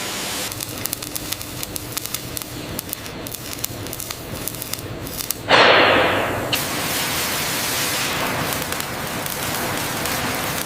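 Factory metalworking noise: a sputtering crackle of many sharp ticks for about five seconds, then a sudden loud hiss that fades into a steady rushing noise.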